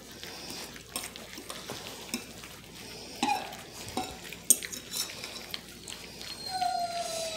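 Basset hound puppies eating wet mush from a shared pan: wet lapping and smacking with scattered clicks and knocks against the pan. Near the end a puppy gives a short, high, falling whine.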